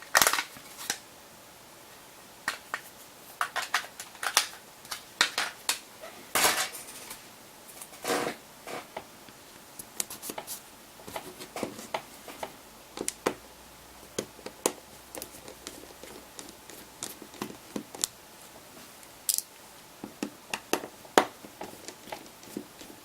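Irregular small clicks and taps of a Torx T6 screwdriver and handling while the rear housing screws of a Huawei Ascend 2 M865 phone are taken out. A few taps stand out louder, near the start, at about six and eight seconds in, and near the end.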